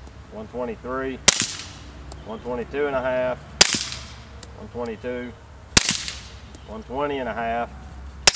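Glock 19 9mm pistol with a Liberty Mystic suppressor firing four suppressed shots, a little over two seconds apart, the last right at the end. Each is a sharp crack that dies away quickly. The meter reads about 120 to 123 dB per shot.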